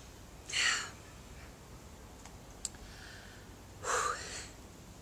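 A woman breathing audibly twice: a deep breath about half a second in and another near the end, the second with a slight voiced sigh. A small click falls between them.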